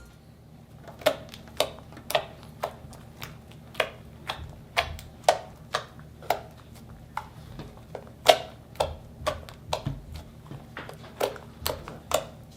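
Homemade fluffy slime being squeezed and poked, giving sharp little pops and clicks about twice a second.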